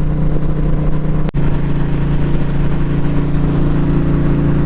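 Indian Challenger's liquid-cooled V-twin running at a steady cruise through a Bassani exhaust, over an even rush of wind and rain-wet road noise. A momentary dropout cuts the sound about a second in.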